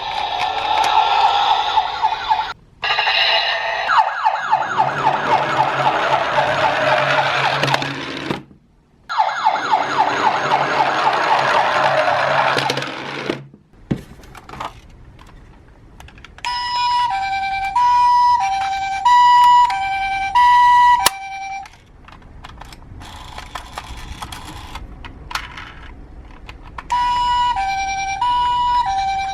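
A toy ambulance's electronic two-tone hi-lo siren, switching between a higher and a lower pitch roughly every half second, sounds in two stretches in the second half. Before that comes a loud, harsh, rattling siren buzz with rapid ticks, which stops and restarts a few times.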